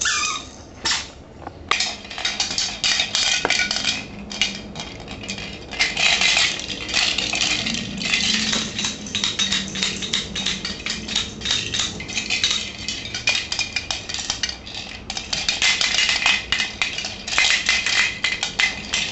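Continuous clinking and clattering of small hard objects knocked together, many quick clicks with short pauses.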